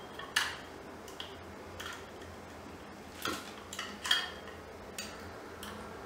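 Light, scattered plastic clicks and taps as a battery is fitted into a small handheld remote control.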